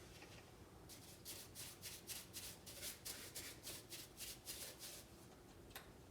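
Faint, rapid short bursts from a compressed-air blow gun, about three or four a second, starting about a second in and stopping about five seconds in; a single sharp click near the end.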